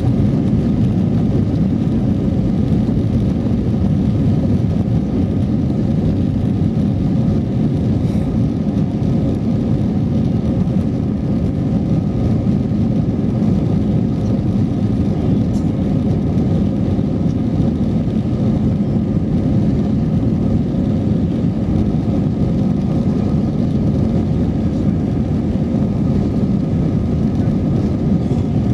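Cabin noise of an Airbus A321-200 heard from a seat over the wing as it rolls along the ground: a steady, even low rumble of the jet engines and airframe, with faint steady tones above it.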